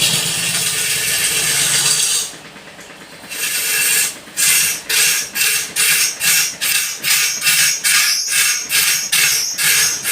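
A tool scraping wood: one continuous scrape for about two seconds, then after a short pause a fast run of rhythmic back-and-forth scraping strokes, about two to three a second, over a faint steady hum.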